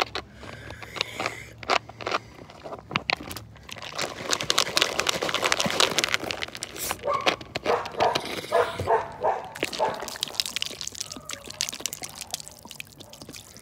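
Close handling noise of a plastic Diet Coke bottle and its screw cap: a rapid run of clicks, crackles and rustles, densest from about four to eight seconds in.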